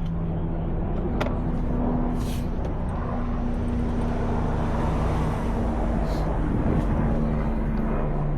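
A steady low mechanical drone, like a motor or engine running, with a few light clicks over it.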